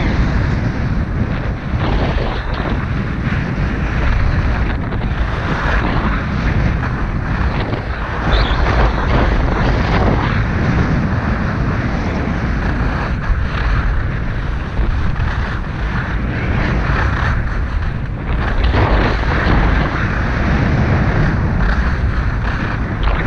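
Wind buffeting a GoPro Hero 5's microphone at skiing speed, a loud steady rumble, with skis hissing and scraping on packed snow that swells through each turn every second or two.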